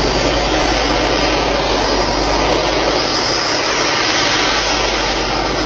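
An engine running steadily at high power: a loud, even rushing noise with no bangs or breaks.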